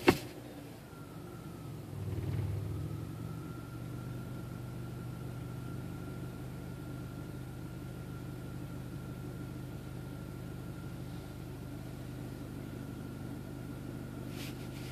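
Mercedes-Benz C230 Kompressor's supercharged four-cylinder idling cold, heard from inside the cabin: a steady low hum with a faint steady whine above it, swelling about two seconds in and then holding. The idle shakes only in Drive while cold, which a mechanic suspects is a transmission problem. The gear selector clicks near the end.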